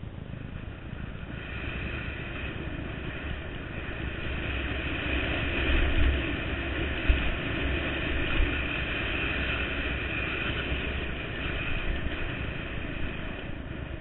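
Dirt bike engine running as the bike rides along a rough dirt trail, its note building about a second in and holding steady, with a low rumble from the bumps and wind on the camera. A sharp knock about seven seconds in.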